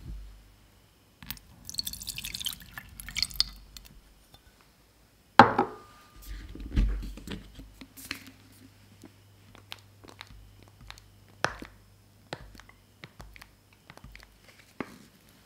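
Water poured from a plastic bottle into an empty saucepan, a splashing pour of about two seconds. Then a single sharp knock, the loudest sound, followed by scattered soft drips and small clicks as more liquid trickles in.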